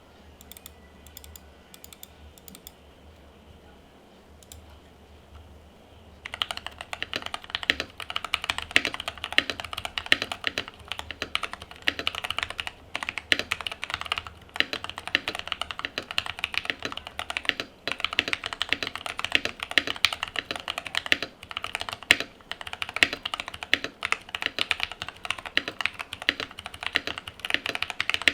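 Keydous NJ68 mechanical keyboard with lubed Jwick T1 tactile switches, steel plate, PBT keycaps and tape-mod and foam dampening, being typed on. The first six seconds hold only a few faint scattered clicks, then fast continuous typing starts and runs on.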